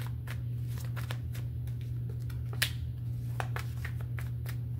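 A tarot deck being shuffled by hand: irregular quick card clicks and slaps, with one sharper snap about two and a half seconds in. A steady low hum runs underneath.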